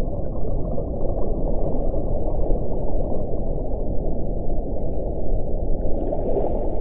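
Steady low underwater rushing noise, the ocean background of a whale-song recording, with no clear whale call. A brief hiss comes about six seconds in.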